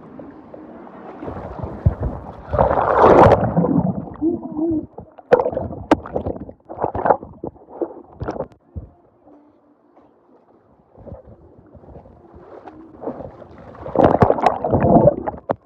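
Water splashing and sloshing right against a phone's microphone, muffled while it is underwater, with a loud rush of splashing about two seconds in and again near the end.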